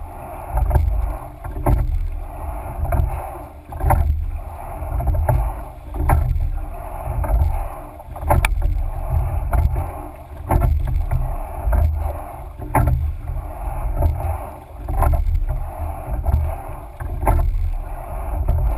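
Rowing shell under way with four oarsmen: a sharp knock of the oars in their oarlocks at each stroke, about one stroke every two seconds, over the rush of water along the hull and a low rumble.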